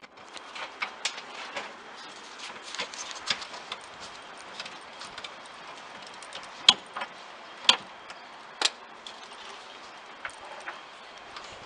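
Irregular small clicks, taps and clinks of hard objects being handled, with three louder sharp knocks about a second apart near the middle.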